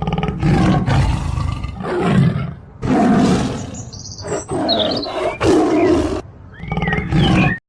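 A large animal roaring: a series of loud, deep roars about a second long each, joined by abrupt cuts. Short high chirping calls come in about four seconds in and again near the end.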